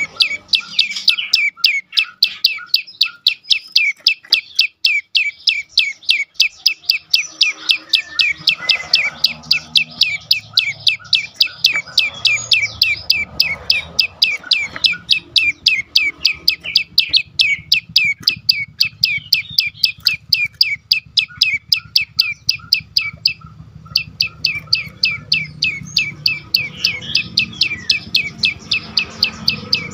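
Olive-backed tailorbird (prenjak lumut) calling in a rapid, unbroken run of short sharp chip notes, about five a second, with one brief break about 23 seconds in. This is the loud 'dor' calling used as a lure to set other tailorbirds calling.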